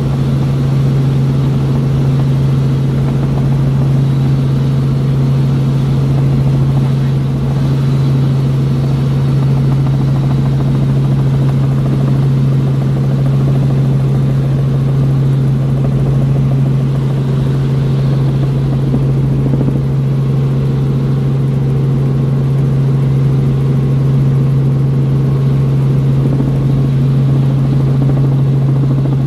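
Light helicopter in steady flight heard from inside the cockpit: a loud, unchanging drone of engine and rotor with a strong low hum.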